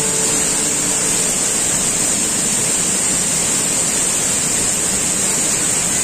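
Waterfall rushing steadily over rock close by, with a constant high-pitched hiss above the roar.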